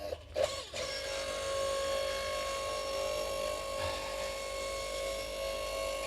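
Hydraulic log splitter's motor and pump running with a steady hum under load as the ram pushes through a firewood round. A short knock comes just under a second in.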